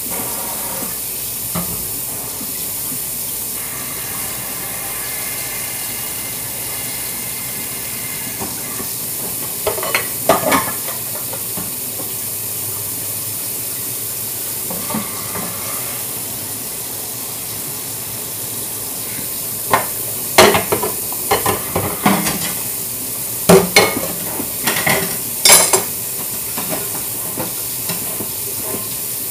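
Kitchen sink sprayer running steadily onto bowls being rinsed, a constant hiss of water. Dishes clink and knock against each other about ten seconds in and several times between about twenty and twenty-six seconds in.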